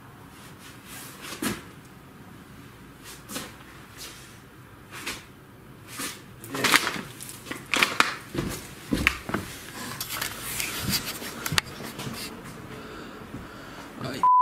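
Wooden knocks, creaks and clatter in a small bare room: a few single knocks in the first five seconds, then a busier run of knocks and scrapes from about six seconds in. A short loud beep cuts in at the very end.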